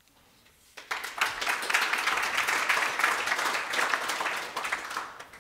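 Audience applauding: the clapping starts about a second in, swells, and dies away near the end.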